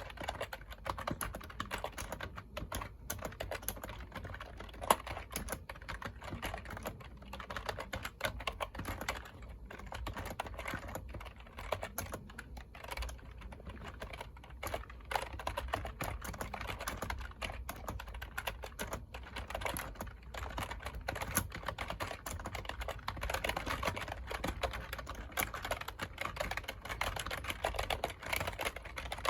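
Computer keyboard typing: a steady, dense stream of key clicks, with one sharper, louder keystroke about five seconds in.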